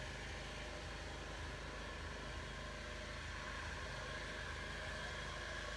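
A faint, steady engine-like hum that holds unchanged throughout.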